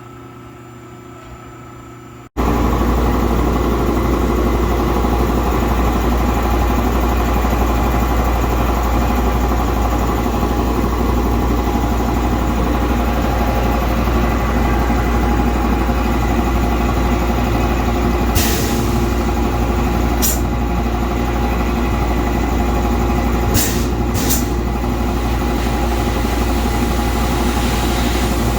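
Shop air compressor starting up about two seconds in and running steadily with a strong low hum, pressurizing the new air lines to test a retightened union for leaks. Four brief hisses of air come in the second half.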